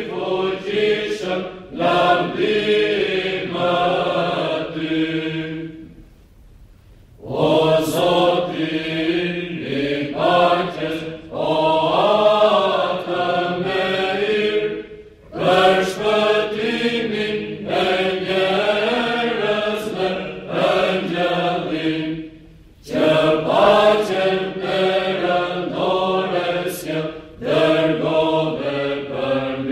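Mixed choir singing Byzantine chant a cappella, in long phrases broken by brief pauses, the longest about six seconds in.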